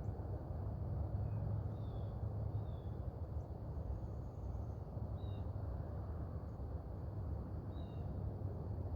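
Outdoor ambience: a steady low rumble, with short bird chirps a handful of times.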